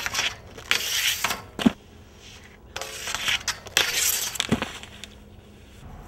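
Skis scraping along a metal handrail in two slides, each ending in a sharp thud as the skier lands.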